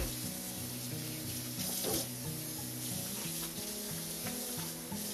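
Kitchen tap running into a sink while dishes are washed by hand, with a short clatter of dishware about two seconds in. Soft background music plays underneath.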